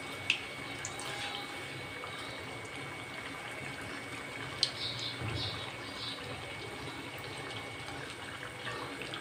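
Gram-flour-battered potato slices deep-frying in hot oil in a kadhai over a lowered flame: a steady sizzle, with a few short clicks as the fritters are turned with a slotted spoon, one just after the start and a few about halfway.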